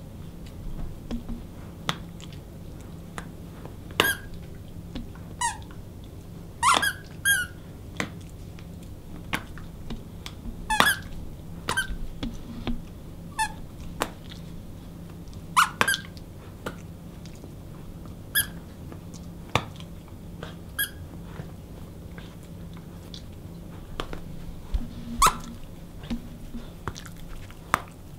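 Squeaker in a plush football dog toy squeaking again and again as dogs bite and chew it: short, sharp squeaks at irregular intervals, some in quick pairs, busiest in the first half.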